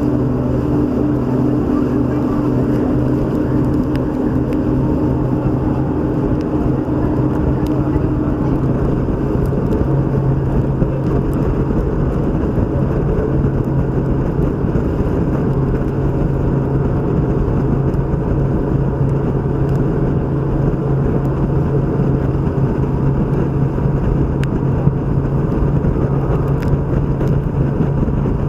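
Tour speedboat's outboard engine running steadily under way, with a continuous rushing of wind and water around the boat.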